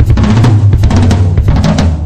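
Late-1990s Premier Genista birch drum kit being played: a fast run of strokes on the drums, with the toms and bass drum sounding low under the snare. The playing stops near the end and the drums ring out.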